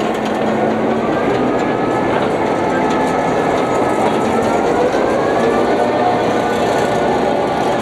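Diesel locomotive rolling slowly past at close range during switching: a steady noise of wheels on the rail and the running gear, with a thin wavering whine over it.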